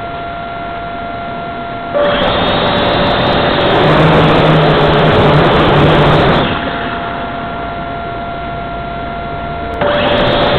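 A small motor whining steadily. A loud rushing noise joins it about two seconds in and again near the end, and the whine dips slightly in pitch while the noise lasts.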